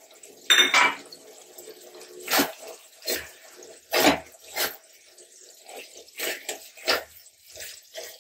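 Silicone spatula stirring sticky apple chutney in a steel kadhai: a run of irregular, wet scraping and squelching strokes, about ten in all.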